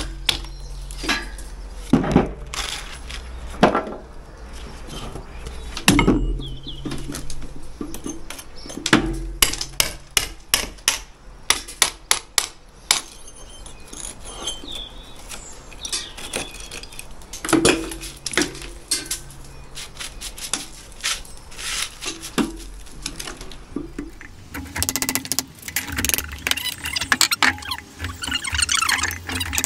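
Lump hammer striking a steel chisel, chopping mortar and brick out of a brick wall: irregular sharp metallic knocks and clinks. In the last few seconds the strikes give way to denser scraping and rattling.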